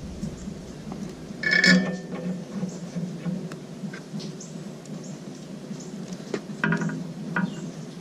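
Steel flywheel bolts and hand tools clinking against the flywheel as the bolts are run down by hand: one sharp, ringing metallic clink just under two seconds in and a few more near the end, between faint small squeaks and ticks.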